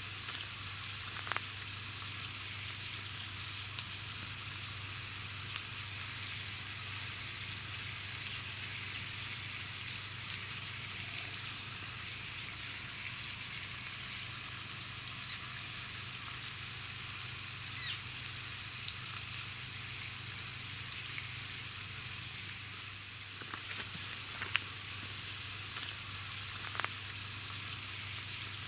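Trout fillets frying in oil in a steel pan over a campfire: a steady sizzling hiss with a few sharp pops now and then.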